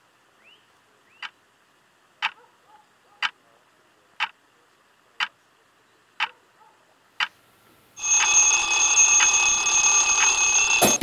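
Ticking once a second, seven ticks, then about eight seconds in a mechanical twin-bell alarm clock goes off with a loud, steady ringing that stops just before the end.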